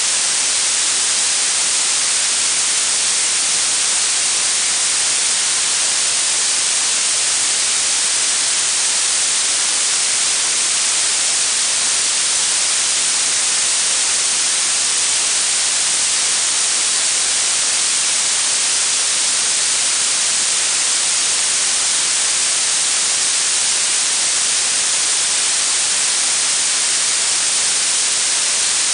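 Blue noise: a steady, unbroken hiss with its energy weighted toward the high frequencies, brightest in the upper treble and thin in the bass.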